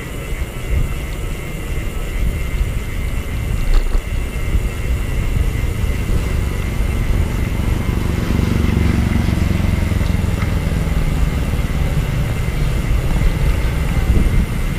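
Motor vehicle engine running amid road traffic, its low rumble growing louder about eight seconds in.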